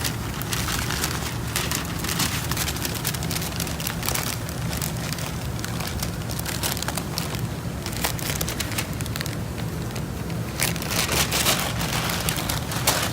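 Masking paper or plastic sheeting crinkling and crackling as it is handled and taped over a car for painting, in many irregular rustles. A steady low hum runs underneath.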